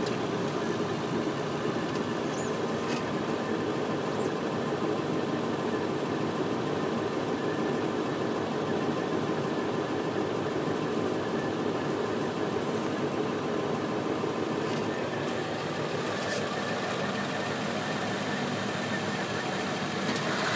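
Steady engine and tyre noise heard from inside a pickup truck's cab as it drives slowly along a dirt road, with a few faint knocks.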